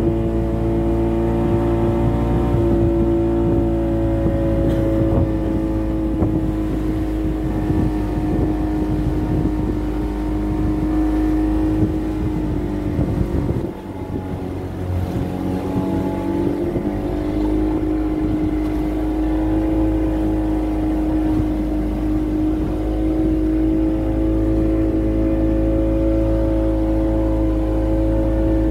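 Boat engine running steadily at cruising speed, with a constant pitch and low rumbling water and wind noise under it. It dips briefly about halfway through, then picks up again.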